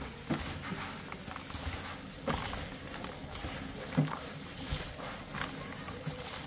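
Scattered light knocks and clicks over a steady background hiss, with a sharper knock about four seconds in.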